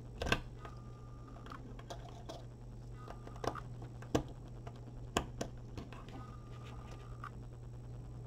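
Small sharp clicks and taps of a small screwdriver and wire ends working the screw terminal on a circuit board, a handful spread across the few seconds, with three short faint squeaks between them. A steady low hum runs underneath.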